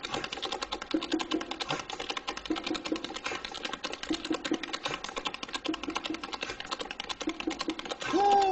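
Fast tap-dance taps, a quick dense stream of clicks, over a faint repeating musical figure. Near the end a loud sliding tone falls in pitch.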